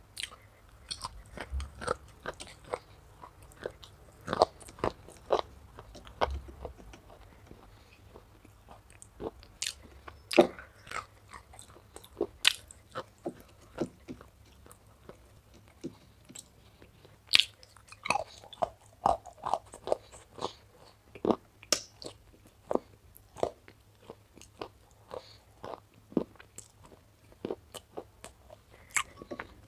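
Close-miked eating of wet clay paste: irregular sharp crunches, clicks and wet smacks of chewing, coming in clusters with short pauses.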